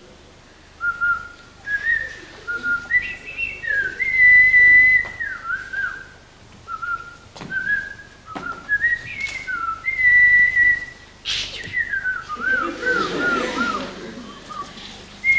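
A person whistling a short tune of stepping, gliding notes, ending in a run of quick wavering notes, with a few sharp taps in between.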